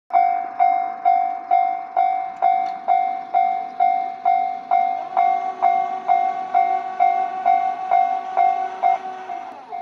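Japanese level-crossing warning bell ringing its repeated 'kan-kan' strike, about twice a second, starting suddenly. From about five seconds in to about nine, a fainter steady hum at several pitches runs under it.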